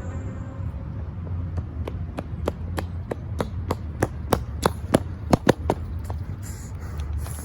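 A rapid, even series of sharp knocks, about four or five a second, starting about a second and a half in and stopping near the end, over a steady low hum.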